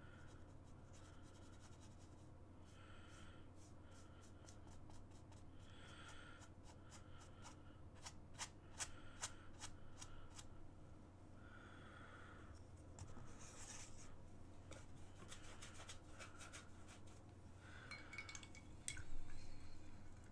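A paintbrush rubbing and dabbing paint on a canvas, faint, with runs of small clicks and a louder bump near the end.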